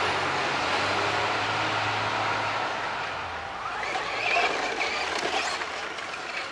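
Radio-controlled Traxxas Slash short-course truck driving on a dirt track: a steady whirr of motor and tyres on dirt, loudest at first and fading over the first three seconds.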